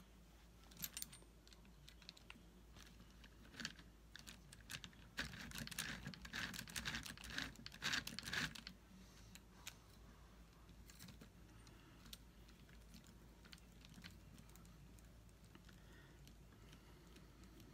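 Faint clicking and light rattling of small plastic and metal parts being handled on an RC crawler chassis as brake calipers and wheels are fitted. A few single clicks, then a busier run of clicks from about five to eight and a half seconds in.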